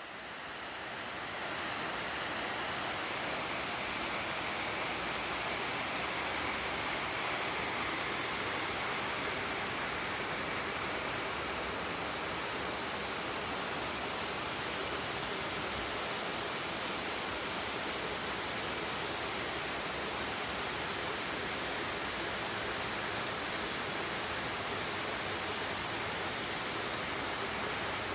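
Creek water flowing steadily, a constant even rush that fades in over the first second or two.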